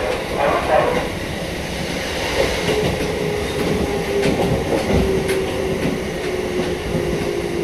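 Takamatsu-Kotohira Electric Railroad train running on the track: a steady rumble with a few clacks. About three seconds in, a whine comes in and sinks slightly in pitch.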